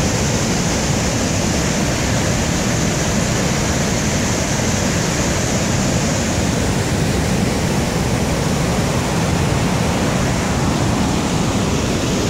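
Twister Falls, a waterfall on Eagle Creek, pouring in full flow: a loud, steady rush of falling water.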